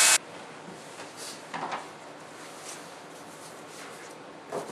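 An electric knife cutting through dense foam stops abruptly right at the start. Then only low room noise with a few soft knocks of handling.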